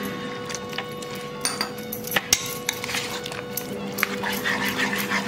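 Metal spoon stirring thick besan batter in a ceramic bowl: wet squelching with sharp clinks of the spoon against the bowl, busiest in the second half.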